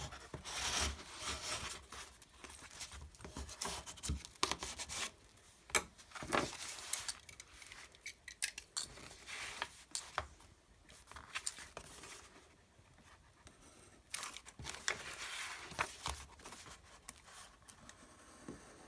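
Paper being handled for notepad-making: irregular rustling, tearing and snipping, with scattered sharp clicks.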